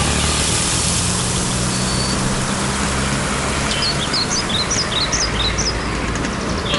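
Steady street noise with a low engine hum from road traffic. About halfway through, a small bird chirps a quick run of short calls.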